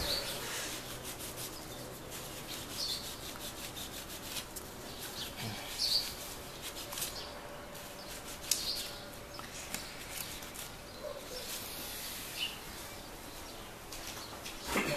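Old thermal paste being wiped and scrubbed off a laptop's processor and heatsink: short rubbing strokes every couple of seconds, with small clicks of handling in between.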